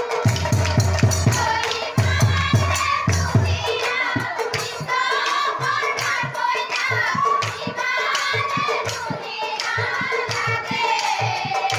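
Nagara naam devotional song: a woman's voice singing over a fast, steady beat of drums and percussion strokes. Heavy low drum thumps come in the first three or four seconds.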